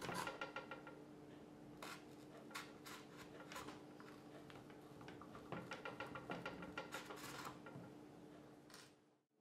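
Faint rubbing and light clicking of hands handling masking tape on a plastic rifle stock, in scattered small clusters over a faint steady hum. The sound cuts out abruptly near the end.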